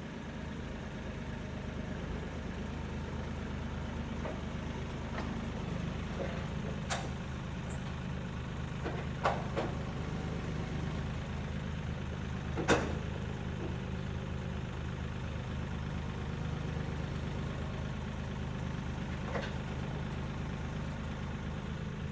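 An engine running steadily at idle, with a few sharp knocks over it, the loudest about halfway through.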